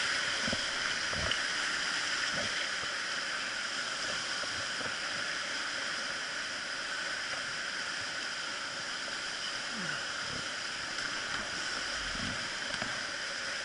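Whitewater rapids rushing: a steady, even hiss of fast, foaming river water, with a few soft low thumps.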